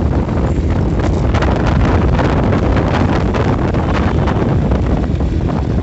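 Wind buffeting the microphone over a Yamaha RX-135's two-stroke single-cylinder engine, which runs steadily as the motorcycle cruises at about 30–35 km/h.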